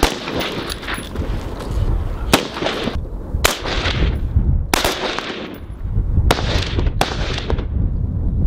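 Single rifle shots from M27 Infantry Automatic Rifles firing 5.56 mm rounds, about seven or eight shots at irregular intervals rather than bursts. Each crack trails off in a long echo.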